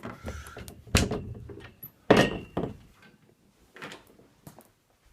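Closet door being shut, with two loud thuds about one and two seconds in and a fainter knock near four seconds, with rustling between them.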